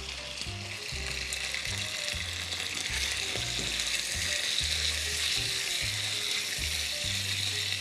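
Bite-size pieces of skinless chicken breast sizzling as they fry in olive oil in a pan, the sizzle getting a little louder about halfway through. Background music plays underneath.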